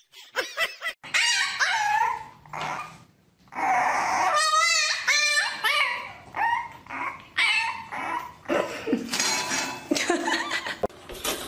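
Dogs whining and yipping in a run of short cries that slide up and down in pitch, with a few short barks. About four seconds in comes one longer, wavering whine.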